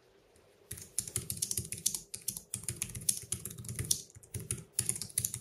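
Typing on the keys of an EC Technology foldable Bluetooth keyboard: a fast run of light key clicks starting about a second in, with brief pauses near two and four seconds.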